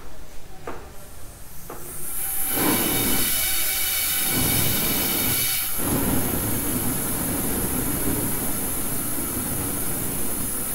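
Small homemade pulse jet engine firing on sprayed fuel: a few clicks, then a steady loud hissing combustion noise with a buzzing edge that starts about two seconds in and keeps going.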